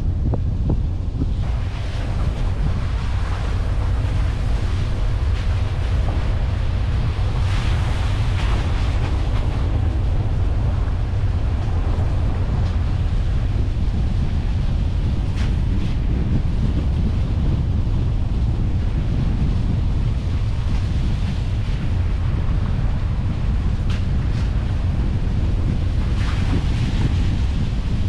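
A car driving along a rough country lane: wind buffeting the microphone over steady tyre and road noise, a continuous low rumble with a few brief hissing swells.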